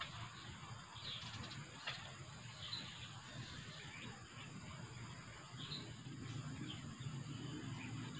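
Outdoor riverside ambience: a steady background hiss and low rumble, with a few short, high bird chirps scattered through it and a faint click about two seconds in.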